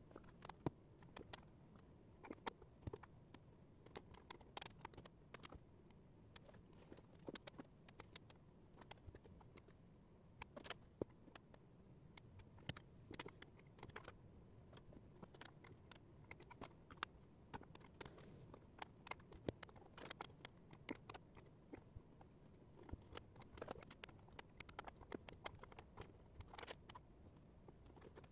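Thin laser-cut wooden jigsaw puzzle pieces being picked up, shuffled and set down on a table: many light, irregular clicks and taps over a faint hiss.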